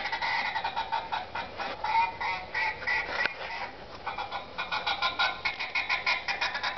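Recorded duck calls played back through an electronic game caller: a fast, steady run of quacks and chatter that thins out around the middle and picks up again after about four and a half seconds.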